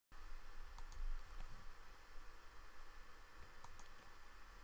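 A few faint, brief clicks over a low steady hum and hiss.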